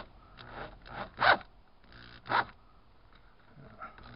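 A few short rasping scrapes of the wooden trim being worked into place against the pebble-dash stucco wall, the two loudest about a second and two and a half seconds in.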